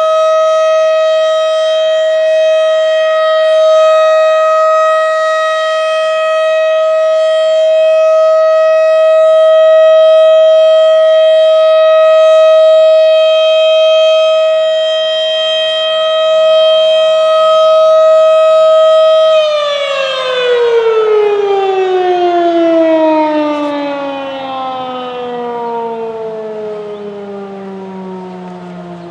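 Federal Signal Model 7 civil defense siren sounding a steady tone during its routine test. About 19 seconds in it is shut off and winds down, its pitch falling steadily as it fades.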